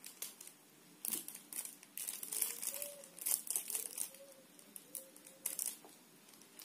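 Irregular crinkling and rustling noises, coming in uneven clusters of short scratchy sounds.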